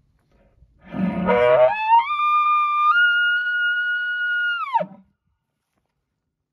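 Elk bugle call blown close by, imitating a bull elk to provoke an answer: a low rough start that climbs in steps to a high whistle, held for about two seconds, then drops sharply into a short low grunt near the end.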